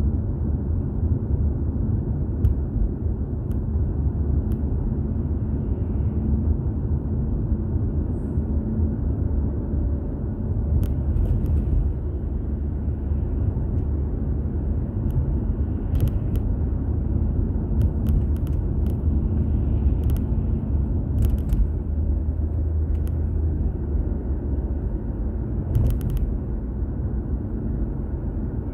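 Steady low road and engine rumble of a car driving, as picked up by a dashcam inside the car, with a few brief clicks here and there.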